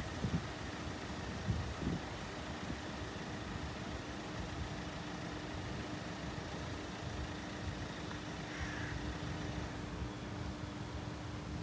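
Low, steady rumble of road vehicles idling, with a faint steady hum and a couple of short thumps in the first two seconds.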